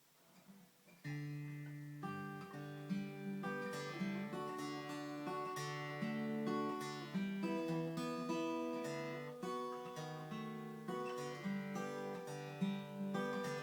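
Yamaha FG340 Mark 2 steel-string acoustic guitar fingerpicked, single plucked notes ringing over a repeating bass note. The playing starts about a second in.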